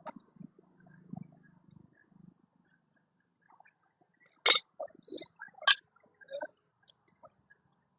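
Metal tools and engine parts being handled during engine work: a few sharp metallic clinks, two of them loud, about a second apart past the middle, with fainter taps around them.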